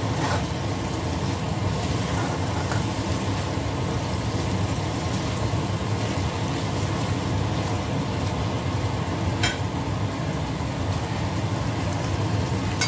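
Fish in a thick sauce sizzling in a nonstick frying pan, stirred and turned with a metal spatula that clicks against the pan a few times, over a steady low rumble.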